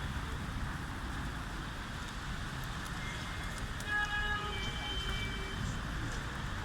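Steady low rumble of wind or distant traffic, with a short burst of high, pitched bird calls about four seconds in.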